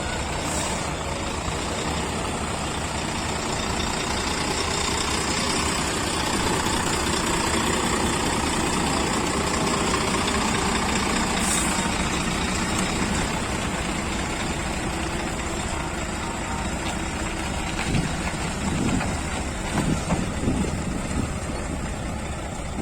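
Heavy lorry engines running amid steady traffic noise, with a few louder swells near the end; no telolet horn melody stands out.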